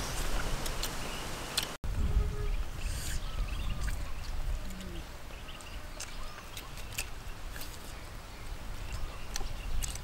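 People eating noodles and chicken with chopsticks: scattered small clicks, smacks and slurping mouth sounds over a low, steady rumble, with a few brief pitched mouth noises. The sound drops out for an instant just before two seconds in.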